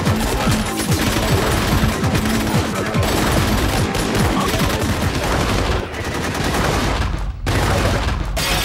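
Movie-soundtrack gunfire from a shootout: a dense, continuous barrage of rapid gunshots, dropping away briefly about seven and a half seconds in before it resumes.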